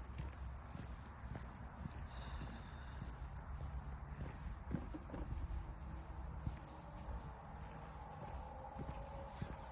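Insects chirring in an evening chorus, a steady, finely pulsing high-pitched trill, over a low rumble with a few faint knocks.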